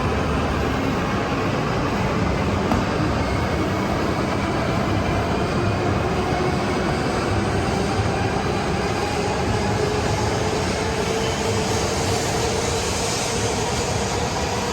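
A train running past: a steady rumble with a faint whine that slowly rises in pitch.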